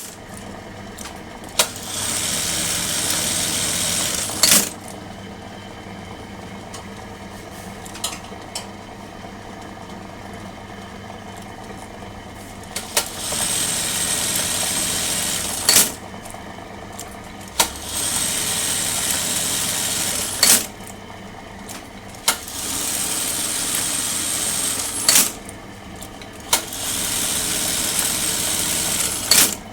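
Juki industrial buttonhole machine sewing in five separate cycles of about two to three seconds each. Each cycle ends with a sharp clack. Between cycles there is a steady hum, with a long pause in the first half broken by a few clicks.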